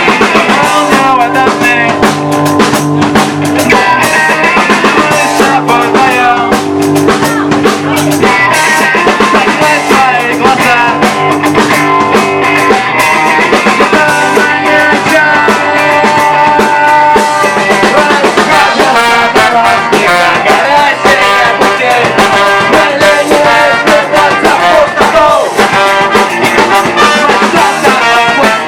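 A band playing a rock song in an acoustic arrangement, with guitar, drums and singing.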